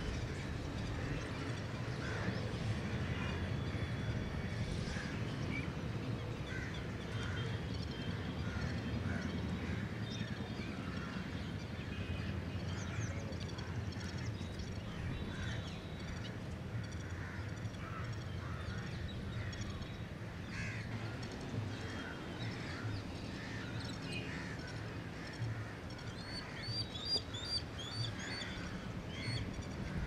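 Gulls calling with many short, repeated cries over a steady low rumble of surf, with a run of higher, quicker calls near the end.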